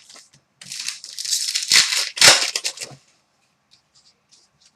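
Foil wrapper of a hockey card pack torn open and crinkled for about two seconds, followed by a few faint ticks of cards being handled.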